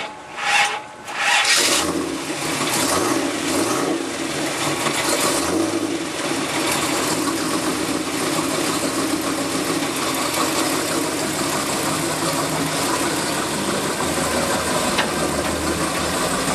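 Supercharged 355 small-block V8 with a 6-71 blower, cranked on the starter in quick bursts. It catches about a second and a half in, rises and falls in pitch a few times, then settles into a steady idle.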